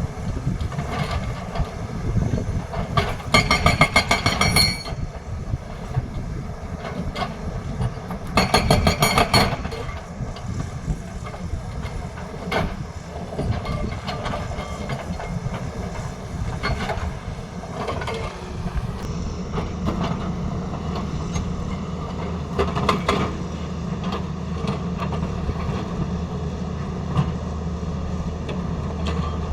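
Hydraulic breaker on a Tata Hitachi excavator hammering rapidly in two short bursts, about three and eight seconds in, over the steady low running of the excavator's engine, with scattered knocks in between.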